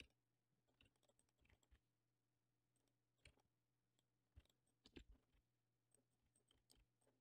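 Near silence with a few faint clicks of a computer keyboard and mouse, a small cluster of them about four to five seconds in.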